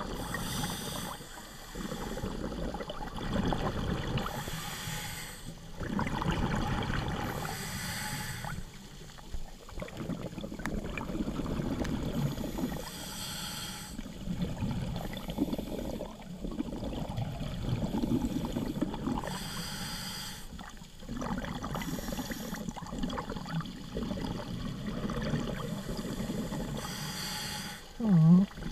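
A scuba diver breathing through a regulator underwater: a hissing inhale comes every six or seven seconds, followed by bubbling exhaust from each exhale, heard through the GoPro's waterproof housing.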